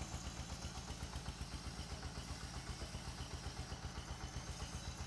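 Engine-driven floating fish-feed pellet extruder running steadily, its engine giving an even, rapid thudding of about five to six beats a second.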